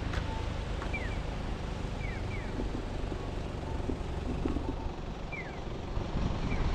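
Street ambience: a steady low rumble of traffic, growing louder near the end, with a few short high chirps that fall in pitch, heard singly and in pairs.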